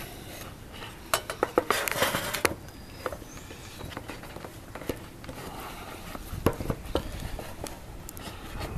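Handling noise at close range: scattered light clicks and knocks of metal parts being moved about, with a denser rustling clatter about two seconds in and a couple of duller knocks near the end.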